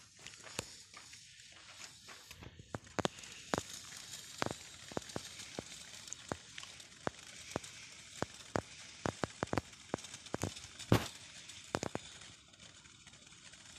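Scattered sharp pops and crackles at irregular intervals over a steady hiss, from fireworks burning out. The loudest pop comes about eleven seconds in.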